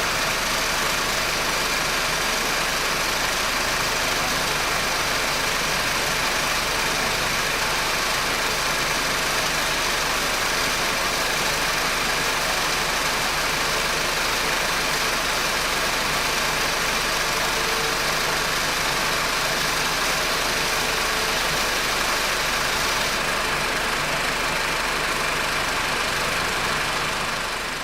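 Honda R18 1.8-litre four-cylinder engine idling steadily, with the intermittent "zzzzz" buzzing of a bad drive-belt tensioner bearing. Fades out near the end.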